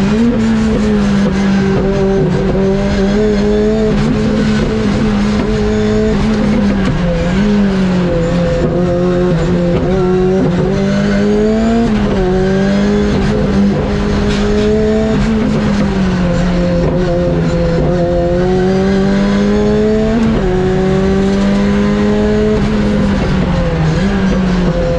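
Ford Escort Cosworth's turbocharged four-cylinder engine being driven hard on track, revs climbing and dropping back sharply at gear changes several times.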